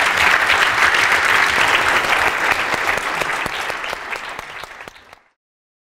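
Audience applauding, fading after about three seconds and cutting off abruptly a little after five seconds in.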